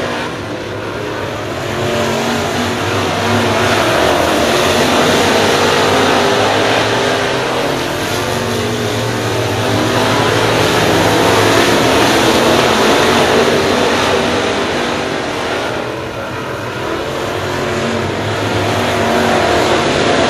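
A pack of dirt-track race cars running hard around the oval. The engines swell as the cars come by near the middle and again near the end, and ease in between.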